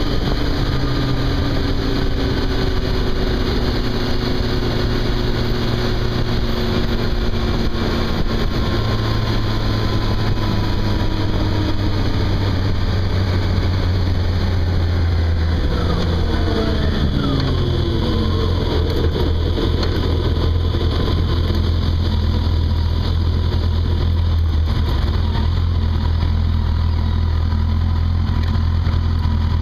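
Yamaha FJR1300's inline-four engine running at road speed under a steady rush of wind noise. About halfway through, the engine pitch shifts up and down in quick steps as the revs change.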